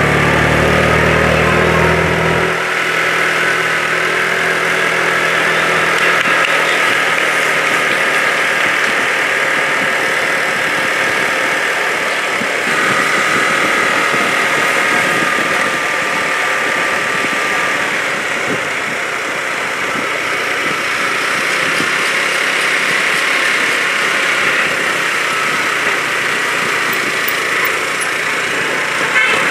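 A vehicle engine running steadily, with road noise; a low hum underneath cuts off about two and a half seconds in.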